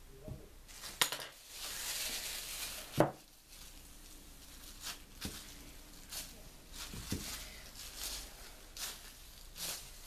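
A click, a rustle and a sharp knock about three seconds in, then a run of soft repeated strokes with plastic crinkling as a small rolling pin wrapped in a plastic food bag is rolled back and forth over wet acrylic paint on a mat.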